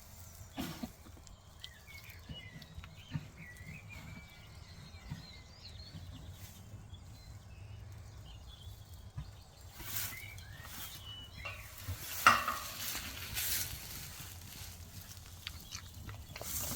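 Crackly rustling and handling noises around a ewe in labour, with faint high chirps in the first half and a sharp rustle about twelve seconds in, over a steady low hum.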